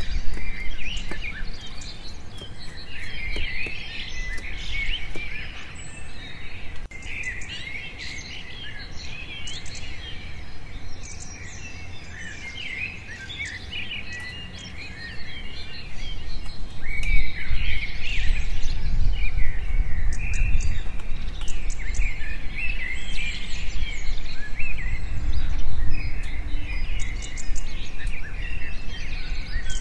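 Birds chirping and singing continuously in a dense chorus. About halfway through, a low rumble comes in and stays, becoming the loudest part of the sound.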